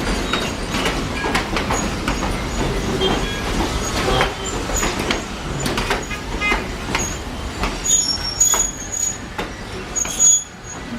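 Train rolling slowly past with a run of clicks and knocks from the wheels and cars, and brief high squeals that come more often in the last few seconds.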